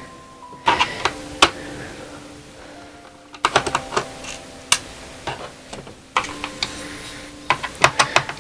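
Screwdriver clicking and tapping on a laptop's plastic bottom case as the case screws are undone, with small screws clinking. The clicks come in irregular clusters, with a quieter spell about two seconds in.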